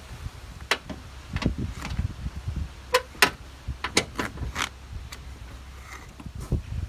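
Irregular sharp clicks and clinks of a tool on the bolts of the plastic cowl tray as they are run in and tightened, about a dozen over several seconds.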